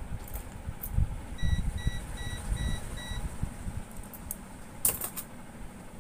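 Digital weighing scale's circuit-board buzzer beeping five times in quick succession, short high beeps a little under half a second apart. A few sharp clicks follow near the end, over low bumping noise.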